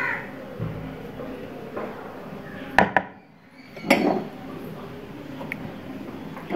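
A metal spoon clinking against dishes a few times while ingredients are spooned onto raw chicken pieces, with sharp clicks about three seconds and four seconds in.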